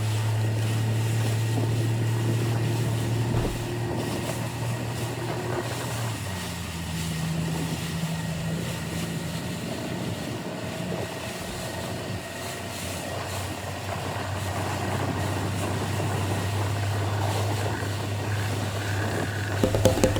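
Motorboat's outboard engine running steadily at speed over wind and water noise, its engine note shifting about six seconds in.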